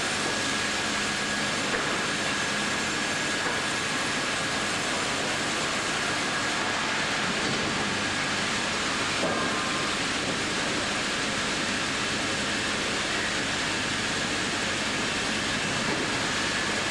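Industrial bandsaw line running: a steady machinery noise with a faint high whine.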